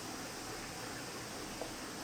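Steady low hiss of room tone, with no distinct sounds.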